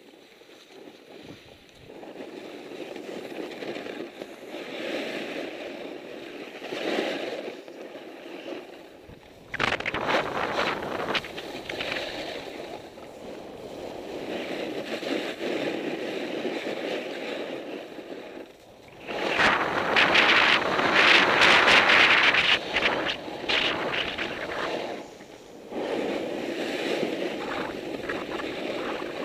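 Skis sliding and scraping over packed snow during a downhill run, with wind buffeting the helmet-camera microphone. The noise swells and fades with the turns, jumps up suddenly about a third of the way in, and is loudest about two-thirds in.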